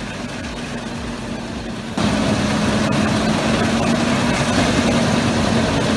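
Heavy machine engine running steadily with a constant hum. It gets abruptly louder about two seconds in.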